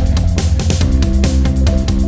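Background rock music with a fast drum beat, heavy bass and guitar.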